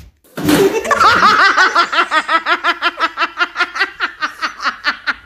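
A person laughing hard in a long run of quick, high-pitched 'ha-ha' pulses, about five a second, starting about half a second in and getting weaker toward the end.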